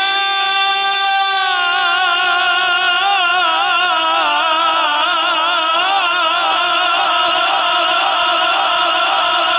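Male Quran reciter's voice in melodic tilawat, drawing out one long note with no break. It holds steady at first, then wavers in quick ornamental undulations from about two seconds in.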